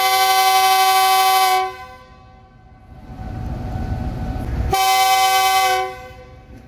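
Pakistan Railways GEU-20 diesel-electric locomotive's horn giving two blasts, each a chord of several steady notes. The first is long and stops about one and a half seconds in; the second is shorter, about five seconds in. It is the signal sounded before the train departs.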